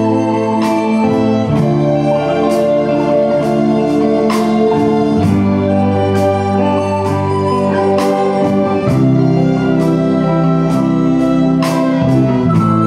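Soprano recorder playing a slow melody over band accompaniment of organ-like electronic keyboard chords, a bass line and a steady drum beat.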